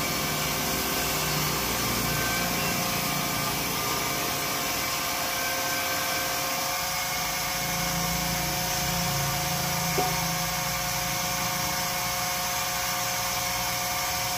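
A steady machine noise with a constant whine running through it, and a single sharp click about ten seconds in.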